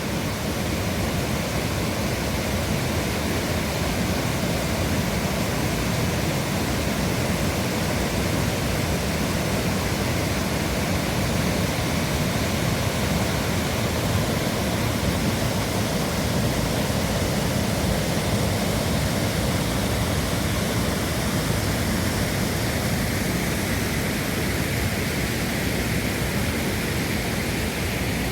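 Waterfall crashing into its pool, a loud steady rush of falling water with no breaks.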